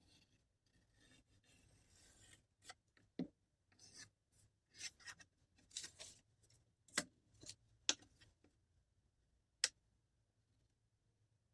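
Quiet hand-working sounds: faint rubbing and scraping, then a run of rustles and sharp clicks and taps, with a last sharp click near the end.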